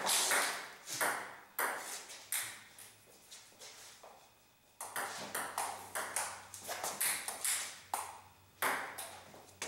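Table tennis rally: the celluloid ball clicking off rubber paddles and bouncing on the table, a sharp click every half second or so. There is a lull of about a second just past the middle, then a quicker run of hits.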